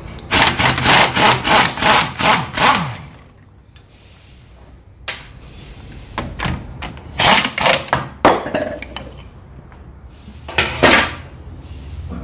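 Husky pneumatic impact wrench hammering in a run of short bursts as it loosens a bolt on an air brake chamber, then winding down with a falling whine about three seconds in. A few more short bursts of noise come later.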